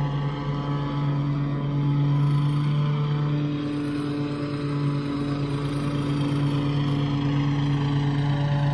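Exmark commercial self-propelled walk-behind lawn mower running at a steady engine speed while cutting grass, its hum holding one even pitch.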